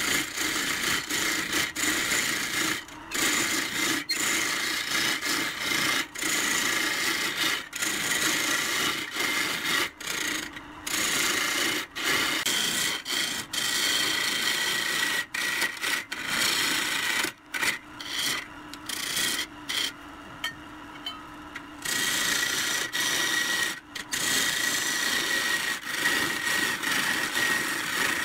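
A hand-held turning tool cutting a spinning old pine blank on a wood lathe: a rough scraping hiss that breaks off briefly many times as the tool lifts from the wood, over a steady hum from the lathe. The cutting stops for about two seconds around twenty seconds in, leaving only the hum.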